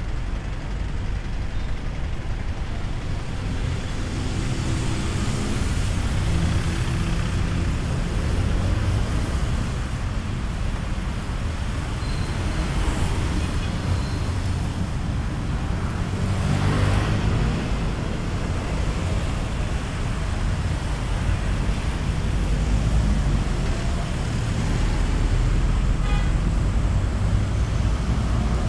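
Heavy road traffic: vehicle engines running and vehicles passing close by, with one going by loudly about halfway through.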